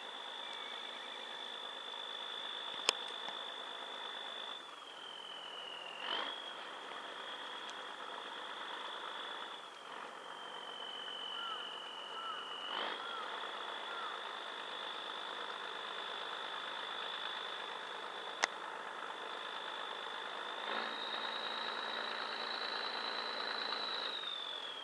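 Diesel engine of a harbour workboat running as it pushes a fishing vessel, with a steady high whine that dips in pitch twice and rises near the end as the throttle changes.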